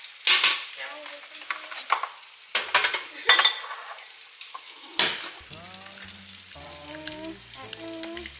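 Kitchen clatter: several sharp clinks and knocks of dishes, bowls and utensils over a faint steady hiss, during egg separating. About five seconds in, background music with a stepping bass line comes in.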